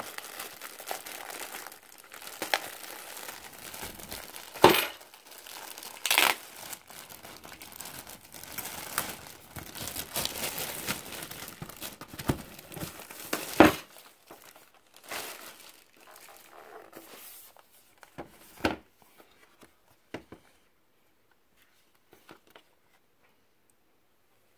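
Packaging being handled as a laptop is unboxed: dense crinkling and rustling with a few sharp snaps, thinning to occasional rustles after about 14 seconds.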